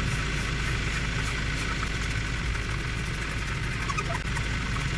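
A hand trigger spray bottle squirting degreaser into a car intercooler's inlet in a run of short squirts, over a steady low mechanical hum.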